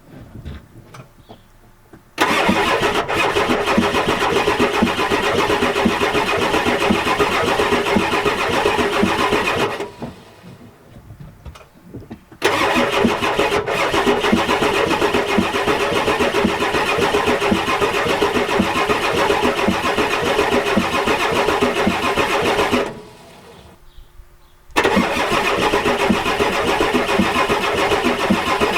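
1993 Ford 7.3L IDI V8 diesel being cranked by its starter in three long tries with pauses between them. The engine turns over with an even rhythm but never fires on ether, which the owner takes as a sign of bad compression.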